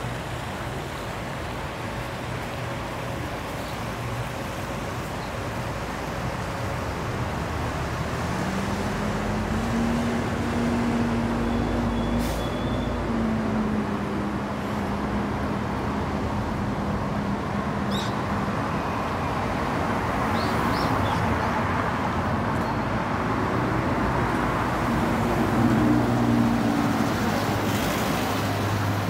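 Street traffic: a steady hum of road noise, with the engine drone of passing vehicles swelling about a third of the way in and again near the end.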